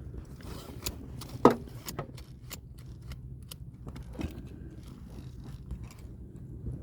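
Seat belt hardware being handled and pushed into place by hand: scattered small clicks and scrapes, with one loud sharp clack about a second and a half in and a smaller knock near four seconds.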